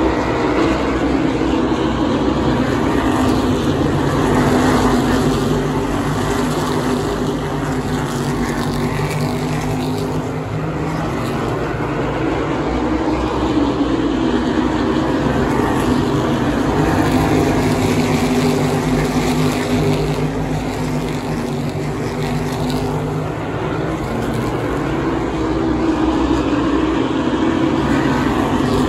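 A pack of asphalt Modified race cars lapping the oval, their V8 engines droning together. The sound swells and eases several times as the field comes past and moves away.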